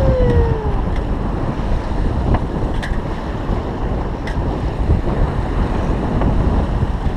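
Wind buffeting the microphone and water rushing and splashing along the hull of a 28 ft Pearson Triton sloop sailing heeled at speed, a steady loud rush.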